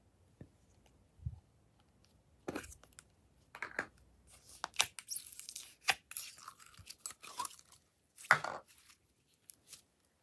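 Purple slime being squeezed and peeled out of a thin plastic cup by hand: irregular crinkling and crackling of the cup and sticky crackles of the slime, coming in bursts, with one loud burst near the end.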